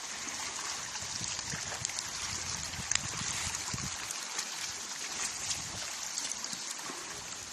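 River water flowing in a steady rushing hiss, with one sharp click about three seconds in.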